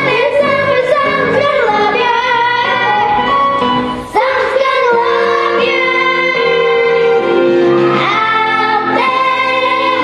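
Music: a voice singing with instrumental accompaniment, holding long notes, with a brief break about four seconds in.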